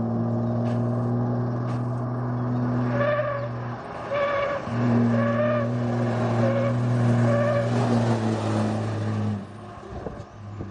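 A motor vehicle running with a loud, steady low hum. In the middle a higher-pitched pulse repeats about every three-quarters of a second, and the hum drops away near the end.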